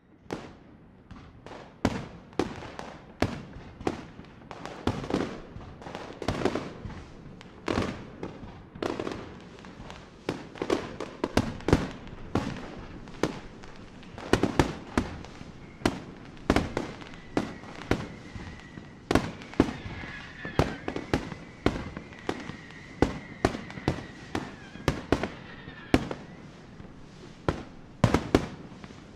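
Fireworks display: aerial shells bursting in a rapid, irregular run of sharp bangs, one or two a second, over a continuous rumble of smaller bursts.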